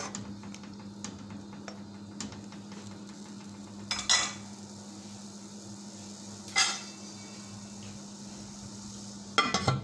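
Steel pot of chicken curry simmering on medium heat, under a steady low hum. Three short metallic clinks come about four, six and a half and nine and a half seconds in.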